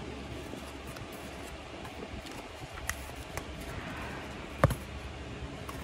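Cardboard model being handled: a few light taps, then one sharp knock about four and a half seconds in, over a steady low hum.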